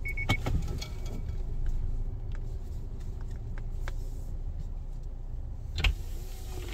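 Car engine idling, a steady low rumble heard from inside the cabin, as the car creeps forward. A short high beep comes at the very start, a few light clicks follow, and a sharper click comes near the end.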